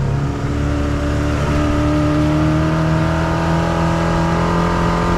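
Mercury 115 outboard motor running under way, its pitch climbing slowly and steadily as the throttle is brought up through the RPMs, over the rush of wind and wake.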